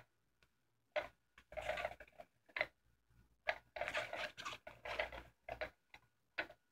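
Electronic cat toy ticking and rustling under its fabric cover in short, irregular bursts with pauses between them.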